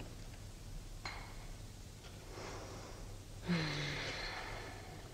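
Quiet room tone with a faint click about a second in, then a person's short breathy sigh with a falling pitch about three and a half seconds in.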